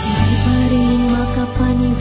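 Background music with held notes over a steady bass that changes chord twice.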